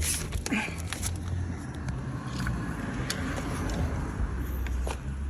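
A car engine idling with a steady low rumble, with a few sharp clicks and knocks of handling over it.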